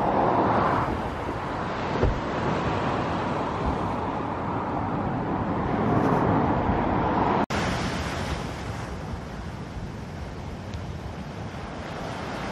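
Surf washing onto a rocky, sandy shore with wind on the microphone; the sound drops out for an instant about halfway through.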